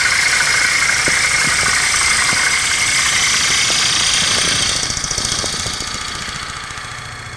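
A bowl gouge cutting into the outside of a spinning Bradford pear bowl on a wood lathe makes a loud, steady hiss as shavings peel off. It fades over the last few seconds as the cut eases off.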